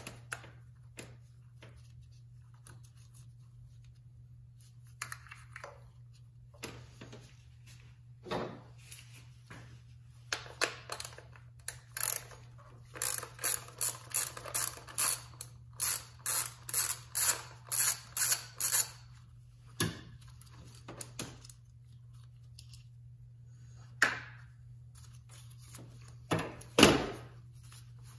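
Hands handling a 2013 Hyundai Elantra's ignition coil and its connector, giving sharp plastic clicks, scrapes and knocks as the old coil comes out and the new one goes in. In the middle there is a run of evenly spaced clicks, about two a second, and a few louder knocks come near the end, over a faint steady low hum.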